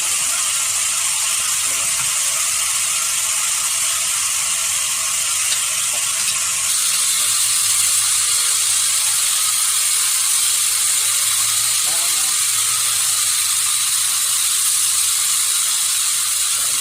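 Sawmill machinery running with a steady, hissing mechanical noise, which grows slightly louder about seven seconds in.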